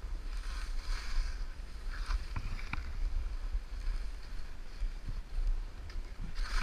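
Skis sliding and turning through soft snow with a hiss, over a steady low rumble of wind on the camera microphone. A few light clicks come about two to three seconds in.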